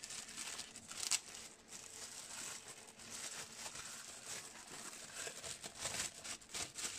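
Thin plastic packaging bag crinkling and crackling as it is handled and pulled open to unwrap a speaker crossover, with a sharper crackle about a second in.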